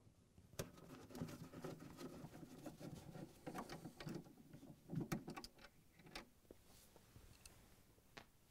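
Faint handling noises: small clicks and scraping as a quarter-inch nut driver backs screws out of a plastic freezer end cap, with gloved hands moving the plastic. The clicking is densest in the middle and loudest about five seconds in, then thins out.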